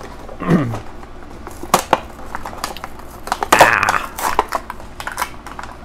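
Plastic blister packaging of a toy monster truck being torn open and handled: scattered clicks and crackles of stiff plastic and cardboard, with a louder crinkling rustle about halfway through.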